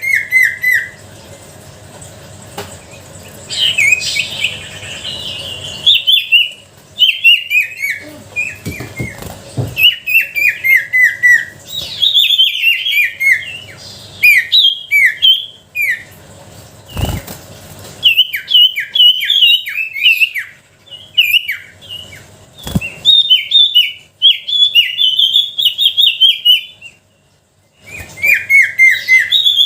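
Pied fantail (sirtu) singing phrase after phrase of quick, falling high notes, with short pauses between phrases. Two sharp clicks break in a little past halfway, a few seconds apart.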